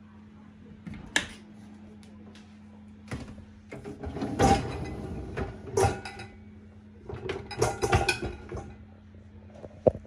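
Beko dishwasher being opened and its wire racks handled: clicks and metal rattling of the racks with stainless pans clinking, in several bursts loudest in the middle, over a steady low hum.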